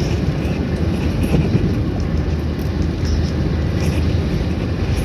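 Steady low rumble of a car driving along a road: tyre and engine noise, unchanging throughout.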